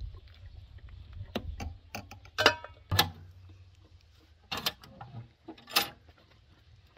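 Sharp metal knocks and clanks: a metal skimmer ladle knocking against an enamel soup pot, two loud knocks about two and a half and three seconds in, then more clanking near the end as the door of a small sheet-metal wood stove is swung open.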